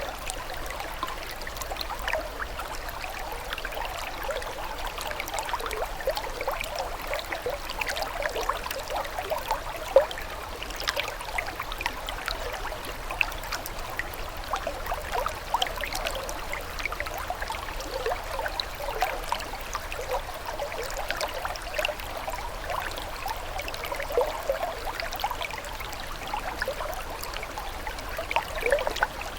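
Running water trickling and gurgling steadily, a dense patter of small bubbling splashes, with one sharper splash about ten seconds in.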